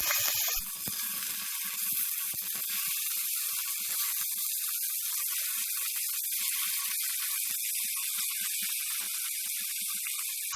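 Salted chicken pieces frying in hot oil: a steady sizzle with scattered small pops and crackles.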